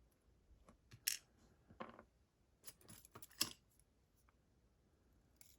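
Small lock pins and springs from a pin-tumbler lock clicking and dropping onto a hard surface as the lock is taken apart: a few light, scattered metallic clicks, bunched about three seconds in.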